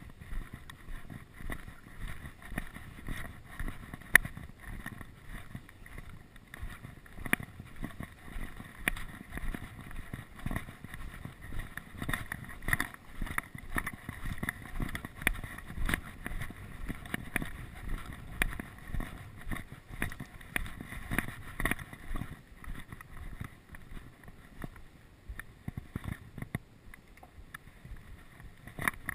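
Gusty wind buffeting the microphone, with footsteps on gravel about twice a second.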